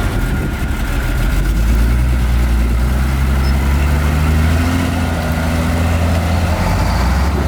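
Heavy diesel engine of earthmoving machinery running, its pitch rising over the first few seconds as it is revved up, then holding steady.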